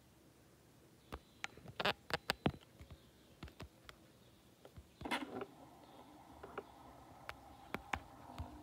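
Irregular sharp clicks and light knocks from handling a DSLR camera body at close range, with a cluster of clicks a second or two in and a short rustle about five seconds in. A faint steady hum runs through the second half.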